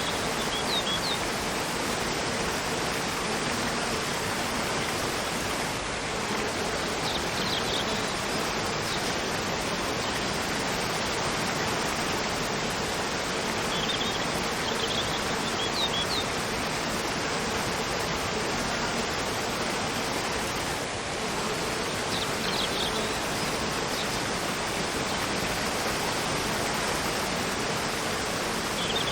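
Cascading waterfall rushing steadily, with a bird chirping in short high clusters about every seven or eight seconds.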